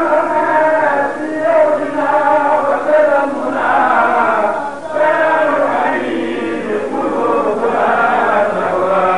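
Men chanting an Arabic devotional poem together, a continuous melodic chant in long drawn-out phrases.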